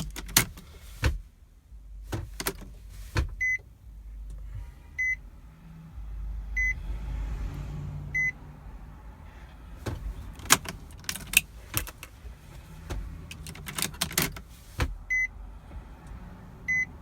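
Car key being handled and turned in the ignition: sharp clicks, knocks and key rattles, with a short high electronic beep repeating about every second and a half, four times early on and twice more near the end, during the key-cycling step of programming a new key.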